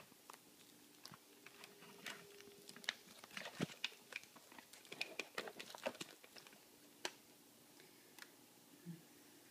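Faint scattered clicks, taps and rustles of a phone being handled and set in place, busiest from about two to six seconds in.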